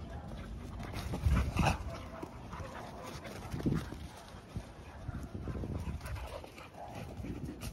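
Two dogs playing chase, with a few short dog vocal sounds, the loudest about one and a half seconds in and again near four seconds.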